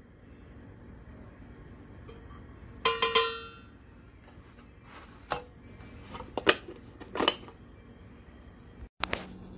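A metal spoon clanking against a metal coffee can: one loud ringing clank about three seconds in, then several shorter knocks and clicks.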